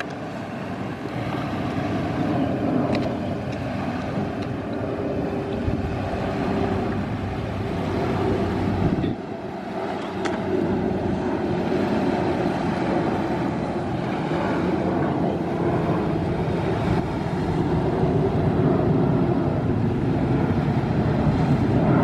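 Jet engines of a Sriwijaya Air Boeing 737 airliner climbing after takeoff, a steady rushing noise that dips briefly about nine seconds in.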